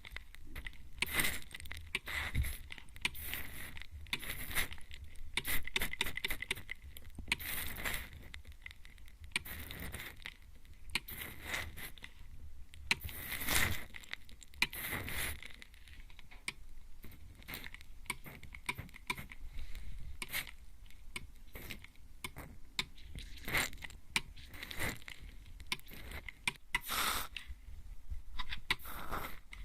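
Mist spray bottle spritzing at a binaural ear microphone: a long run of short, hissy sprays at an irregular pace.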